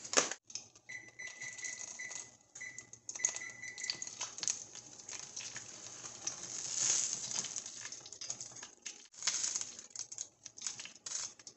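Pine nuts being stirred with a silicone spatula as they fry in a stainless steel frying pan, rattling and clicking against the metal in quick irregular ticks. A thin, high steady tone comes and goes over the first few seconds.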